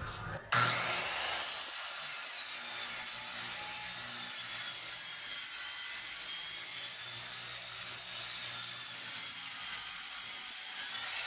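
Makita M-series circular saw with a 60-tooth blade starts with a quick rising whine about half a second in, then cuts steadily through marine plywood, guided along a straight-edge jig.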